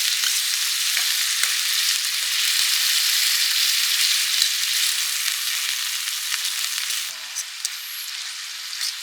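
Food sizzling over a wood campfire: a steady hiss with scattered small pops and crackles, turning quieter about seven seconds in.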